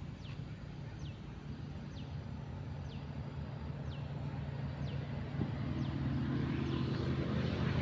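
A bird repeating a short, high, falling whistle a little more than once a second, over a low steady engine drone that grows louder from about two-thirds of the way in.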